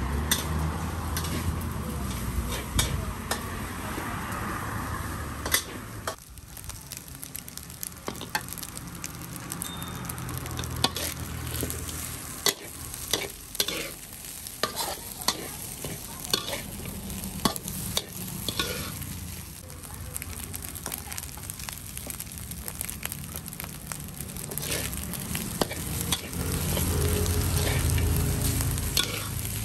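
Metal spatula scraping and clanking against a steel wok as rice is stir-fried over high heat, with a steady sizzle beneath the many quick strokes. A low rumble grows louder near the end.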